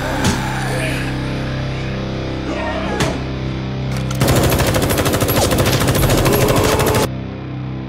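Rock music, with two sharp hits in the first three seconds. About four seconds in, rapid automatic gunfire from two guns fired at once rattles for about three seconds and cuts off suddenly.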